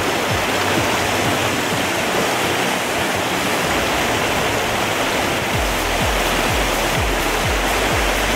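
Steady rush of a fast, shallow mountain stream running over rocks and riffles, with background music whose bass line comes in more strongly in the second half.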